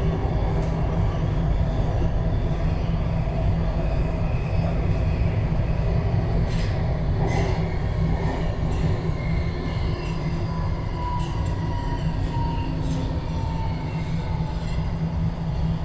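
Alstom Metropolis metro train running through a tunnel, heard from inside the train: a steady low rumble of wheels on rail with a faint whine that slowly drifts in pitch, and a few clicks around the middle.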